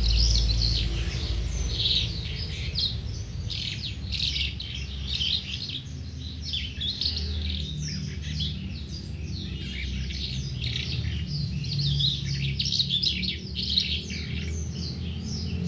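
Caged Calandra lark singing a long, unbroken song of rapid, varied chirps and trills.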